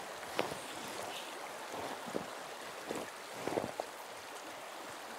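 Shallow river water flowing over riffles, a steady rush. A few short sharp sounds stand out above it, about half a second in, near the middle and around three and a half seconds in.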